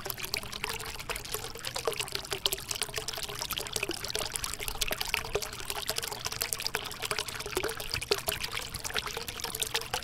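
Small homemade cement waterfall fountain running: water pouring from several spouts and trickling into the basins below, a steady splashing with many small drips.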